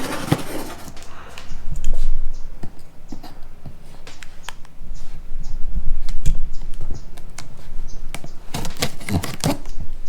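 Handling noises: a scatter of small clicks and knocks from objects being moved and handled, with a cluster of sharper knocks near the end, and heavy low thumps of the camera being handled or carried about two and six seconds in.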